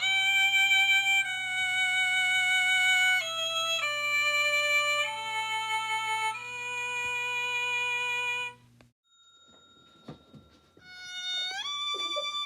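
Violin playing a slow run of held notes with slight vibrato, the first sliding up into pitch. It breaks off sharply about nine seconds in, and a new note slides up near the end.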